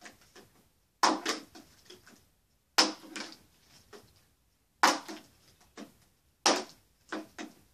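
A plastic water bottle being flipped and thumping down on a wooden dresser top, four times about two seconds apart, each hit followed by a few smaller knocks.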